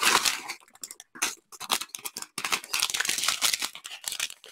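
Small plastic bags of diamond-painting drills crinkling as they are picked up and handled, in quick irregular rustles with short pauses.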